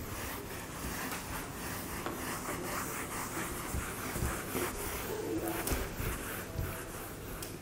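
Whiteboard duster rubbing back and forth across a whiteboard in repeated strokes, wiping off marker writing.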